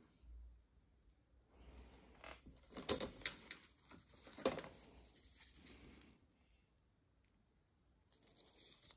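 Faint rustling and crackling handling noise, with two sharper clicks about three and four and a half seconds in, then a short rustle again near the end.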